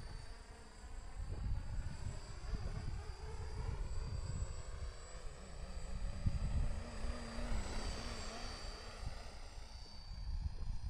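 Electric RC helicopter's motor and rotor whining in flight, with an insect-like buzz whose pitch wavers up and down and grows louder about two-thirds of the way through as it passes nearer. Wind rumbles on the microphone underneath.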